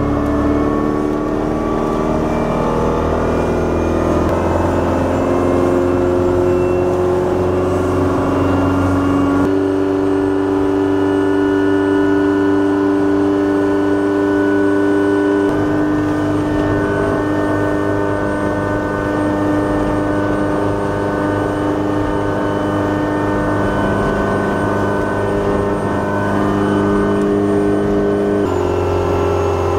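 Yamaha FC27 fishing boat's engine running under way, its pitch climbing over the first several seconds as the boat speeds up, then holding steady at cruising speed. The pitch shifts slightly a few times.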